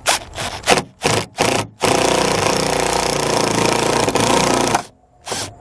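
Cordless drill with a Phillips bit driving a machine screw into a pilot hole in the hood's sheet metal: a few short trigger bursts, then a steady run of about three seconds that stops suddenly, and a brief blip near the end.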